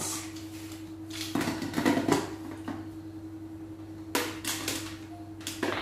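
A few short knocks and clatters of kitchen items being handled, a cluster about a second and a half in and more near the end, over a steady low hum. No grinder is running yet.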